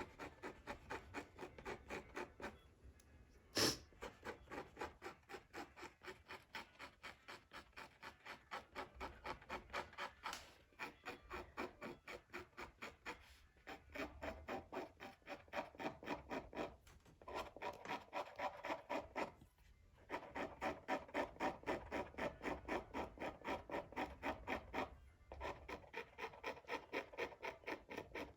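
Rapid back-and-forth rubbing or scraping by hand, about four strokes a second, in runs broken by short pauses. There is a single sharp click about four seconds in.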